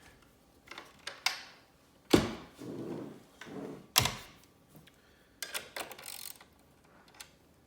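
A 1/2 inch wrench clinking against a lock nut and the metal arm as the nut is snugged: a few sharp metal knocks, the loudest about two and four seconds in, and a short rustle near six seconds.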